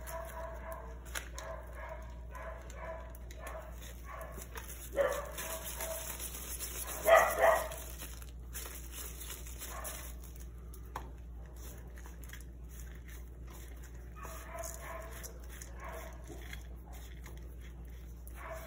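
Short, loud animal calls: one about five seconds in and two close together about seven seconds in, over faint, broken background sound.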